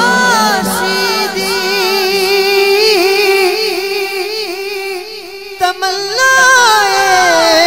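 A male naat reciter's solo voice singing a long, drawn-out melismatic passage of a Punjabi naat, the held notes winding up and down in pitch. Partway through it drops quieter for about a second, then rises again on a higher sustained note.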